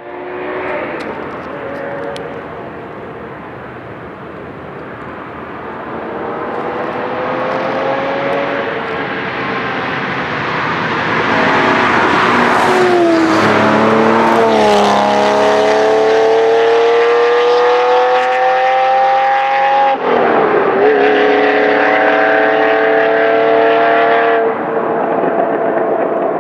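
Ferrari Testarossa flat-twelve engines accelerating hard and driving past, getting louder over the first half. About halfway through a car passes close with the pitch dropping as it goes by; then the engine note climbs steadily, dips briefly around 20 seconds in, climbs again and falls away near the end.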